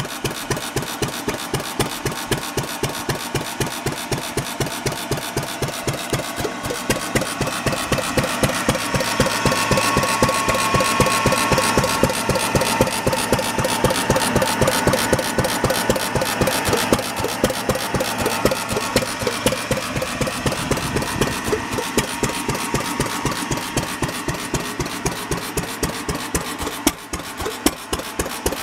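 Fairbanks Morse ZC stationary gas engine running steadily, with an even, rapid exhaust beat.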